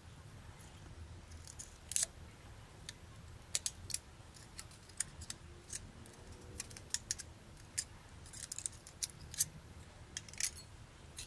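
Irregular sharp little clicks and snaps of a Nikon Coolpix AW110 camera's plastic body and internal parts being handled and pried apart by hand.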